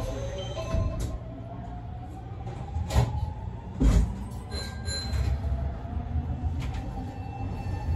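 Semboku 9300 series electric train pulling away, its traction motor whine rising slowly in pitch over a steady running rumble. Two heavy knocks from the wheels on the track come about three and four seconds in.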